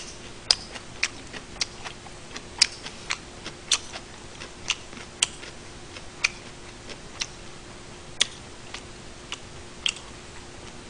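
A person chewing food with the mouth close to the microphone: sharp wet mouth clicks and smacks at an irregular pace of about two a second, over a faint steady hum.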